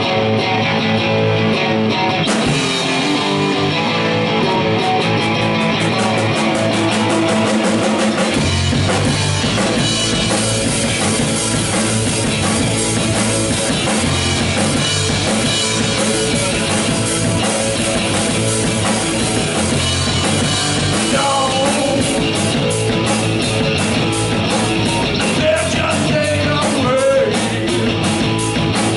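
Rock band playing, electric guitar and drum kit: the song opens on guitar, cymbals come in after about two seconds, and bass and kick drum fill out the full band about eight seconds in.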